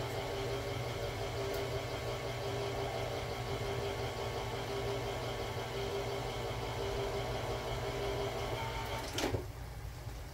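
Electric can opener running steadily as it cuts around a can lid, then stopping with a click about nine seconds in.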